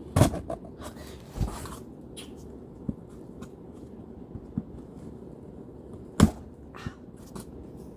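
Handling noise from opening a boxed figure: scattered clicks, knocks and brief scrapes of the packaging, with two louder knocks about a quarter second in and about six seconds in, over a steady low background hum.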